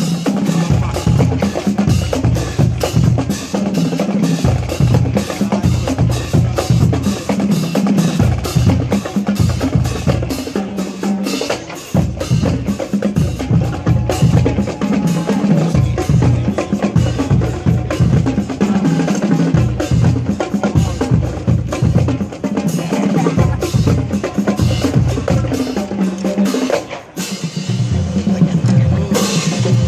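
Marching drumline playing a fast cadence: snare drums rattling over a line of tuned marching bass drums that play split runs at several pitches. The playing thins briefly near the end, then comes back in with a loud unison hit.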